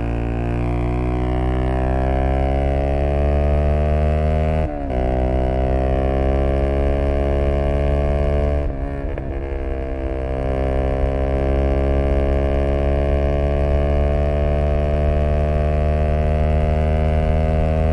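Zontes U125's single-cylinder 125 cc engine through an aftermarket Black Widow exhaust, accelerating with its pitch climbing steadily. The sound breaks off briefly twice, about five and nine seconds in, as gears are changed up, and then climbs again.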